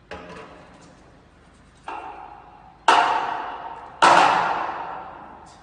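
Metal parts of a manual six-colour, six-station screen printing press clanking as it is worked by hand: four metallic knocks, the last two loudest, each ringing out for a second or more.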